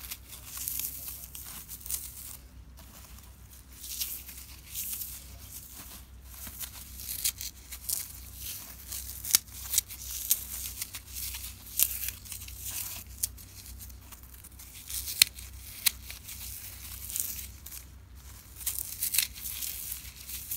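Dry, unsoaked floral foam chunks crushed between the fingers: a crisp crunching and crackling that comes in waves, with a few sharper snaps standing out near the middle.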